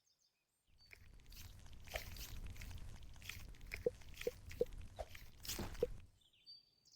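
A soft foam squishy toy squeezed and kneaded close to the microphone: rustling, crackly handling noise, with a run of short squeaky pops about two to three a second in the latter half.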